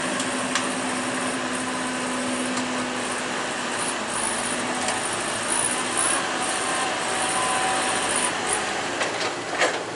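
Heavy vehicle's diesel engine running steadily, with a few light ticks and a sharper knock near the end.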